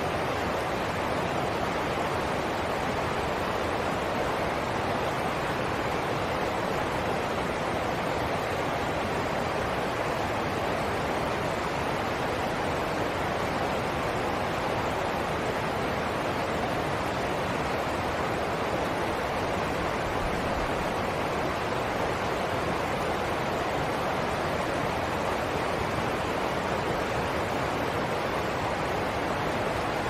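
A rocky stream running over small cascades: a steady, unbroken rush of water.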